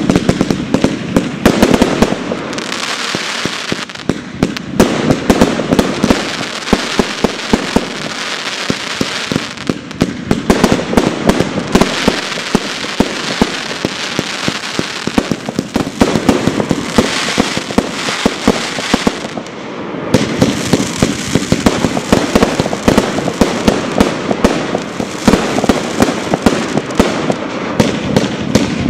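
Aerial fireworks display: shells bursting in rapid, dense bangs over a continuous crackle, with a few brief lulls between volleys.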